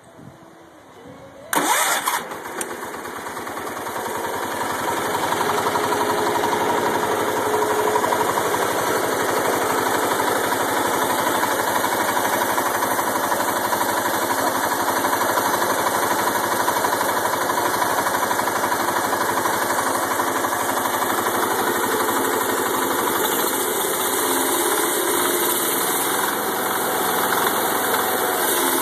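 Kohler single-cylinder engine of a 1975 International Cub Cadet 1250 lawn tractor starting about a second and a half in, getting louder over the next few seconds, then running steadily. It runs on a newly fitted carburetor, points, condenser and coil.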